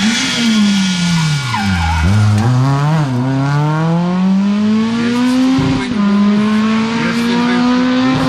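Citroën C2 rally car's engine passing at speed: the revs fall as it brakes about two seconds in, then climb steadily as it accelerates away, with a brief drop at a gear change near six seconds before rising again.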